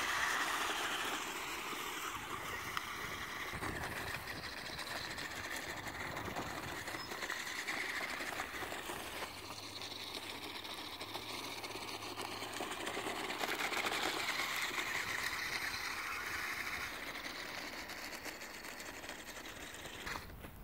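Electric drive motors of a toy radio-controlled amphibious all-terrain vehicle whirring as it drives, the whine swelling and fading a few times.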